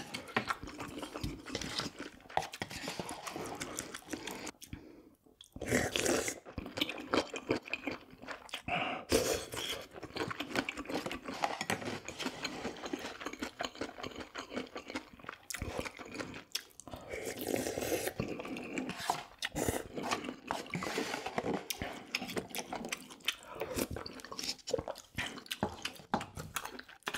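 Close-miked eating: a person chewing and biting, with continual wet mouth clicks and crunching, pausing briefly about five seconds in.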